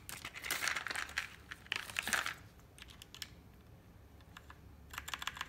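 Plastic bag of keycaps crinkling in two stretches as it is rummaged through, then a quick run of light plastic clicks near the end.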